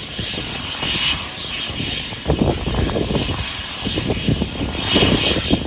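Helicopter running on the ground: a steady high engine hiss over an uneven, gusty low rumble that swells about two seconds in and again near the end.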